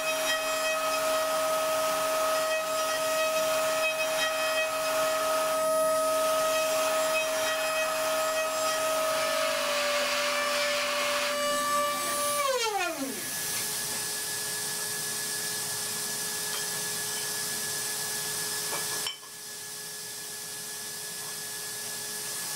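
Datron CNC mill's high-speed spindle milling aluminium, a steady high whine with cutting noise. About halfway through the spindle spins down, its pitch falling quickly, leaving a quieter steady hum and hiss from the machine that drops in level a few seconds before the end.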